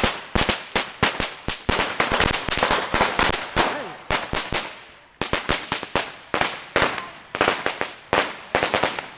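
A long string of firecrackers going off in rapid, irregular crackling bangs, several a second, with a brief lull about four seconds in before it picks up again.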